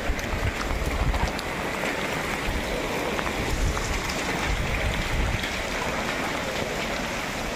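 Heavy rain falling steadily on a flooded street, a continuous hiss over the floodwater with a few drops ticking close by.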